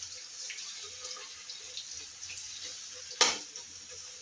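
Boiled koliya (mahua fruit) pieces sizzling in hot oil in a metal kadhai, with small crackles. A metal spatula knocks sharply once against the pan about three seconds in.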